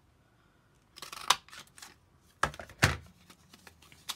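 A handheld paper punch pressed twice through red cardstock: two loud sharp clunks close together, after a rustle of card being slid into position. A lighter click and paper handling follow near the end.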